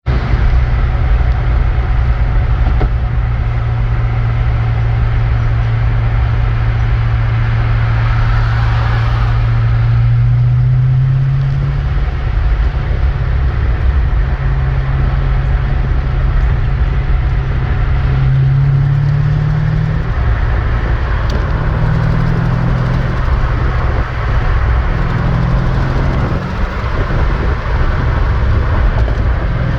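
Car engine running steadily, its pitch stepping up briefly several times.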